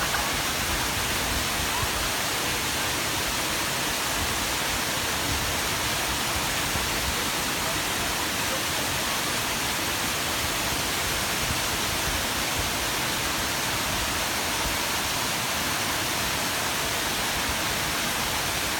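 Mountain waterfall: falling water rushing steadily as one constant, unbroken hiss.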